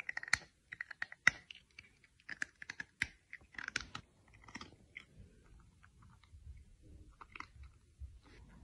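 A cat chewing, making a quick run of wet mouth smacks and clicks that are dense for the first few seconds and then sparser.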